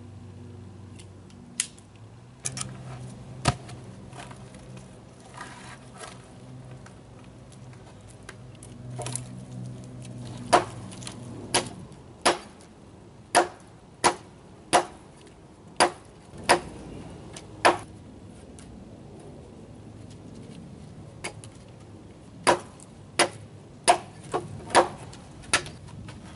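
Hatchet chopping into a log: a run of about nine sharp wooden strikes, then after a pause another run of about six, roughly one to two a second, with a few single knocks before them.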